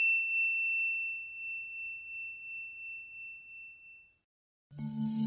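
The tail of a single high bell-like ding ringing out with a slow wavering, fading away about four seconds in. Near the end a ringtone melody begins, with low sustained notes under it.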